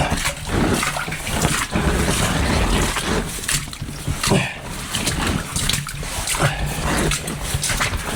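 Wading through flood water, feet splashing and sloshing in an irregular rhythm, with a few short grunts.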